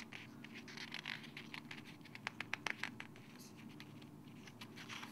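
Faint scratching and light tapping of fingers handling the paper pages of a hardcover picture book, with a quick run of small sharp clicks around the middle.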